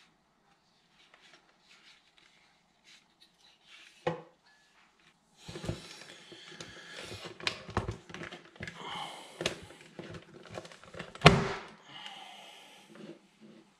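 Plastic rear-view mirror mount being worked off a VW Golf Mk6 auto-dimming mirror housing by hand: a knock, then a few seconds of plastic scraping, creaking and clicking, ending in a sharp snap about eleven seconds in as the mount comes free.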